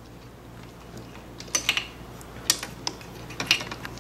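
Small metal clicks and taps of parts being handled as the valve body and its parking rod are worked into place in a 32RH automatic transmission case, scattered and more frequent in the second half.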